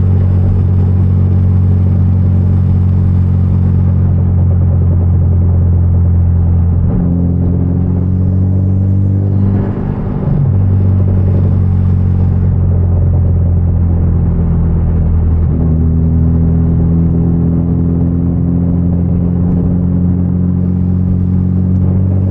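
Hyundai Genesis Coupe's turbocharged four-cylinder engine and loud exhaust droning steadily while cruising. The engine note steps up in pitch about seven seconds in and again about fifteen seconds in, with a brief dip in level about ten seconds in.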